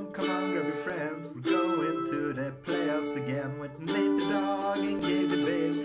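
Outro music led by strummed plucked strings.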